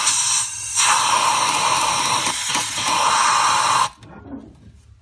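Compressed-air blow gun with a long-reach nozzle hissing as it blows out a spark plug well, with a brief let-up about half a second in. It cuts off suddenly near the end.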